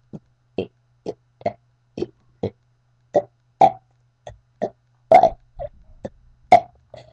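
A person burping the alphabet letter by letter: about fifteen short separate burps, roughly two a second, some louder than others.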